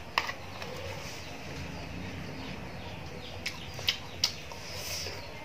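Close-up eating sounds: a few short, sharp mouth smacks and clicks, three of them in quick succession near the end, as a man eats from a spoon, over a steady low background noise.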